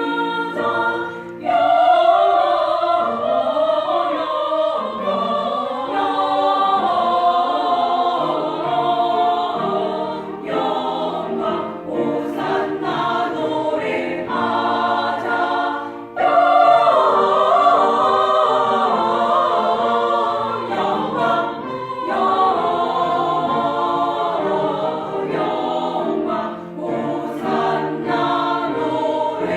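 A small church vocal ensemble singing a sacred song in harmony, with held chords. The sound drops briefly about a second and a half in and again around sixteen seconds in, then the voices come back in.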